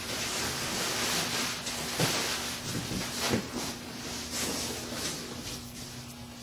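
Rustling of packing material and a cardboard box being handled, with a few light knocks, growing quieter near the end.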